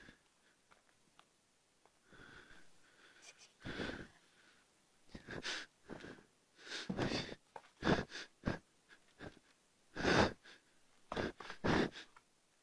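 A person breathing close to the microphone in short, irregular, noisy breaths, coming faster and louder in the second half.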